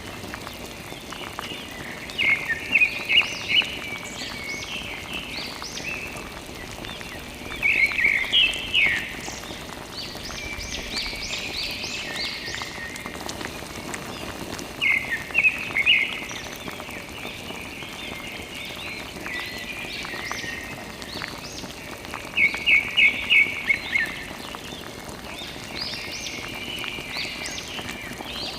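Birds chirping: bursts of four or five quick, high chirps about every six or seven seconds, with softer twittering between them over a steady background hiss.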